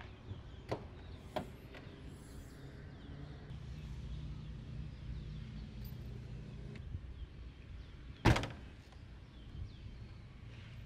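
Two light clicks near the start, then about eight seconds in one loud thunk of a Mitsubishi Space Wagon's rear tailgate being shut, over a low rumble.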